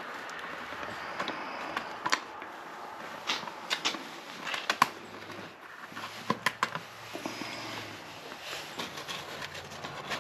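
Irregular metallic clicks and clinks of a hand wrench working a bolt on the frame of a Yamaha XT250 motorcycle, the bolt holding the toolkit cover. A faint steady hum sits underneath.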